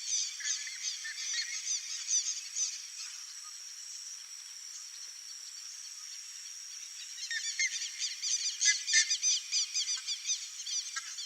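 Buff-necked ibis calling: loud, high-pitched honking notes repeated several times a second, easing off in the middle and loudest again over the last few seconds.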